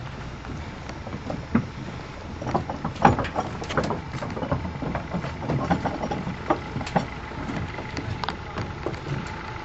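Footsteps on a floating dock, irregular knocks and clunks as shoes land on its decking and metal grating, over a steady outdoor hiss of wind on the microphone.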